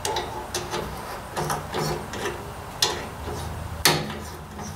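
A 7/16-inch coarse thread tap being turned with a wrench through a rusty welded-on nut, giving irregular metallic clicks and short creaks as it cuts debris out of the threads, two sharper clicks about three and four seconds in.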